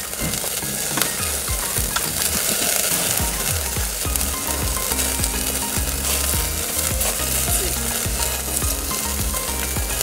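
Food frying and sizzling in a pan, a steady crackling hiss, with background music underneath.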